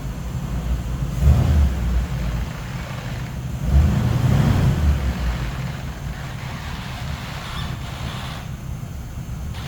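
1965 Chevy C10 pickup's engine running, swelling louder twice, about a second in and again around four seconds in, then settling back to a steady low rumble.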